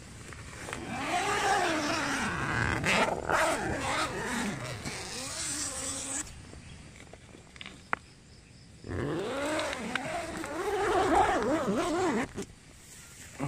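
Tent door zip being pulled open in two long drags, each a rasping buzz whose pitch rises and falls with the speed of the pull, with one sharp click between them.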